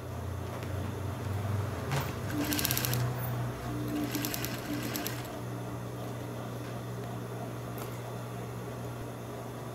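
Industrial sewing machine: a steady motor hum throughout, with two short runs of rapid stitching about two and four seconds in, then only the hum.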